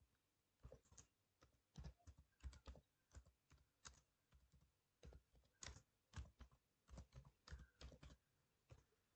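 Faint clicking of computer keyboard keys as a short phrase is typed: an irregular run of quick keystrokes that stops about eight seconds in.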